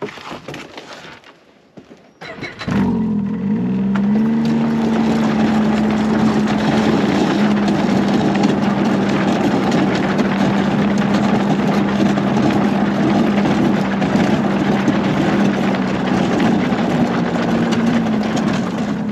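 Snowmobile engine starting about three seconds in, its pitch climbing briefly and then settling into steady running as the sled makes a short move across the ice. The engine noise falls away at the very end.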